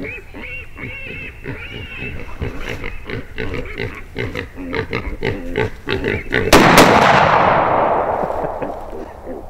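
Hog grunting and squealing in quick rapid grunts, then about six and a half seconds in a very loud 12-gauge shotgun blast with double-aught buckshot that rings out and fades over the next few seconds.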